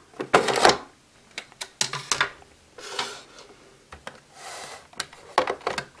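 Hard plastic toy storage box handled: clicks and rattles as its cover is pressed on, two short scraping slides as the cover is slid off, then plastic clatter near the end as a toy belt buckle is lifted out of the box.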